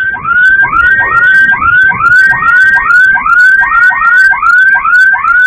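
Electronic siren sounding in fast rising yelps, about two a second, each sweeping up in pitch and briefly holding before the next.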